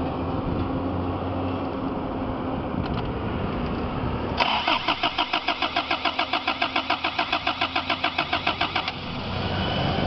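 Starter motor cranking the carbureted engine of a 1991 Toyota Cressida after its fuel pump was replaced, beginning about four seconds in as a quick, even pulsing of about nine beats a second and stopping about four and a half seconds later. A steady low hum comes before it.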